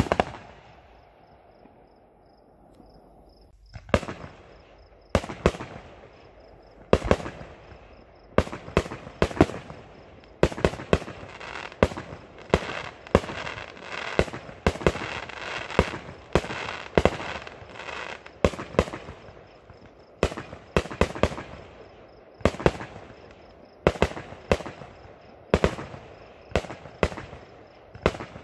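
Aerial fireworks going off: one sharp bang at the start, a few seconds' lull, then a long run of irregular bangs and pops, several a second at the busiest.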